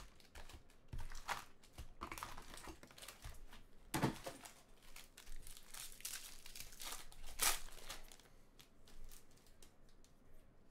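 Crinkling and tearing of Bowman Draft trading-card pack wrappers being handled and opened, in irregular crackles, with two sharper tears about four and seven and a half seconds in.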